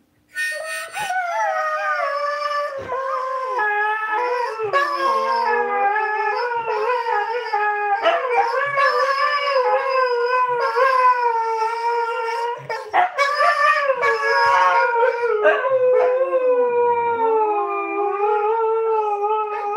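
Siberian husky howling on and on, its voice wavering up and down in pitch with a few short breaks, and swooping low once near the end.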